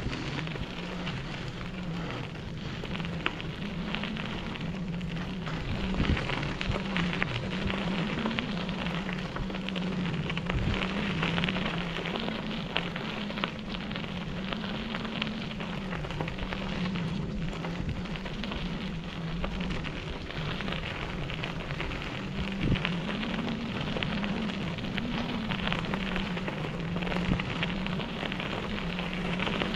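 Bicycle tyres rolling over a dirt and gravel trail: a steady crackling rustle full of small clicks and knocks, over a low hum that wavers slightly in pitch.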